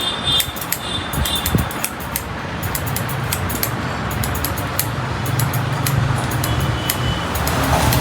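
Barber's scissors snipping in quick, irregular clicks over a steady background hum and hiss.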